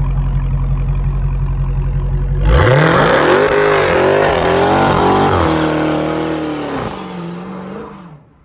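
Dodge Charger SRT Hellcat's supercharged V8 idling steadily, then, about two and a half seconds in, revving hard through a burnout. The revs waver up and down over the tyre squeal, and the sound fades as the car pulls away near the end.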